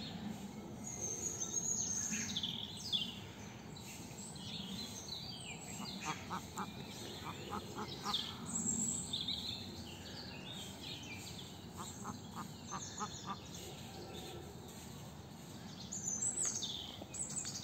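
Small birds chirping and singing all around, with two short runs of quick repeated notes about six and twelve seconds in.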